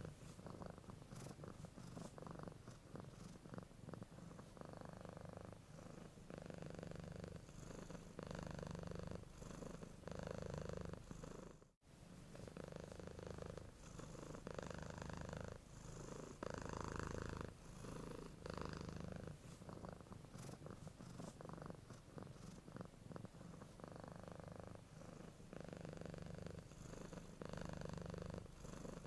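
Domestic cat purring steadily, the purr swelling and easing with each breath about every two seconds. It drops out for a moment about twelve seconds in.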